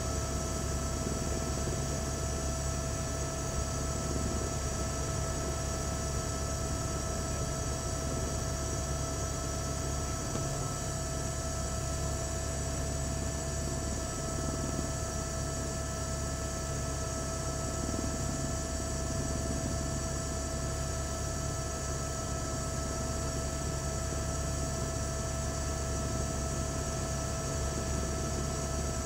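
Steady drone of a news helicopter heard from aboard: a constant whine over a low rumble and hiss, unchanging throughout.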